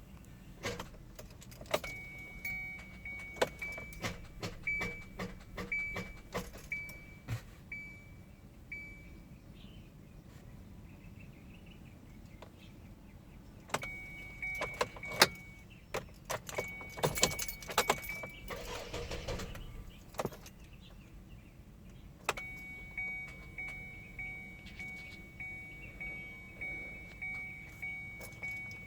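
2015 Kia Soul that won't start: its warning chime beeps over and over in a high, even tone, in three spells, amid sharp clicks and jangling keys, and the engine never catches.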